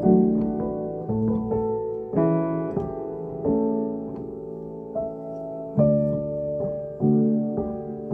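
Piano played with both hands: slow chords and notes struck roughly once a second, each left to ring and fade before the next.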